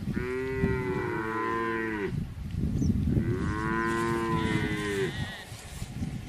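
Cows mooing: two long moos, each about two seconds, with a pause of about a second between them.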